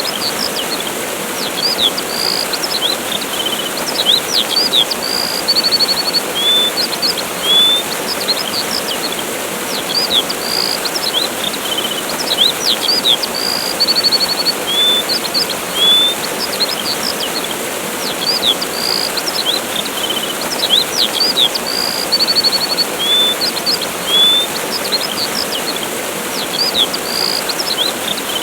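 Waterfall rushing steadily, with small birds chirping and trilling over it in short high phrases; the same run of bird calls comes round again about every ten seconds.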